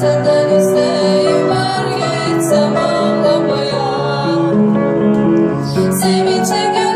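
An upright piano being played: a slow melody over sustained notes. A woman's voice sings along over it.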